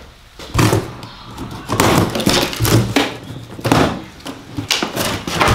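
A large cardboard shipping box being unpacked by hand: plastic strapping bands pulled off and the cardboard rustling, scraping and knocking in irregular bursts.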